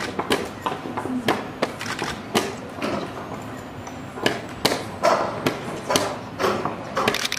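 Plastic chess pieces set down hard on a vinyl board over a wooden table, with the chess clock tapped after each move in fast blitz play: a quick, uneven run of sharp clicks and knocks, about two or three a second, with a brief pause near the middle.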